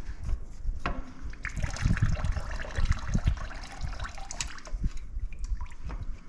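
Engine oil trickling and dripping as the oil filter on a Rotax aircraft engine is worked by hand during an oil change, with a few light knocks. The trickle is heaviest for a few seconds starting about a second and a half in.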